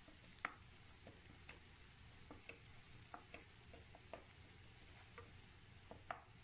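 Chopped onion, green chillies and spices faintly frying in oil in a pan while a wooden spatula stirs them, with scattered small irregular clicks over a low sizzle; the loudest click comes about half a second in.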